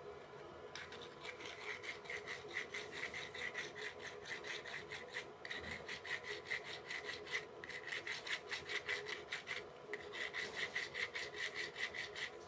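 Sandpaper rubbed back and forth on a contactor's metal magnet faces, in quick, even strokes of about four a second that stop briefly a few times. The sanding cleans the pole surfaces so the contactor's magnet closes smoothly and quietly.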